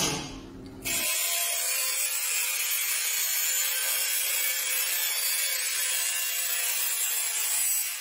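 Angle grinder with an abrasive cut-off disc cutting through thin sheet steel: a steady grinding hiss over a constant motor whine. It starts abruptly about a second in.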